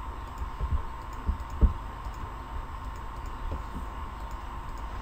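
Scattered soft clicks of a computer mouse and keyboard, a few low thumps among them, the loudest about a second and a half in, over steady faint microphone hiss.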